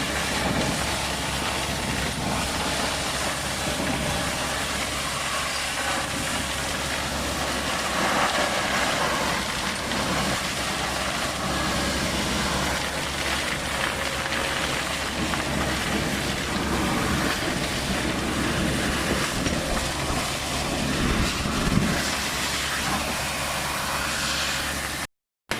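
Vacuum excavator running: a steady engine hum under a loud, even rush of air from the vacuum system. It breaks off to silence for a moment near the end.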